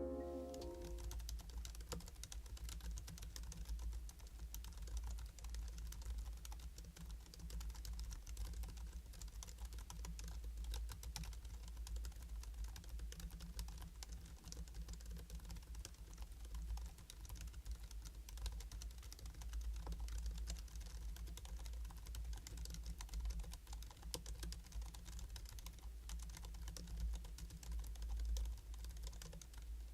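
Continuous typing on a Hansung GK698 OfficeMaster low-noise pantograph (scissor-switch) keyboard: a rapid, unbroken run of keystroke clicks.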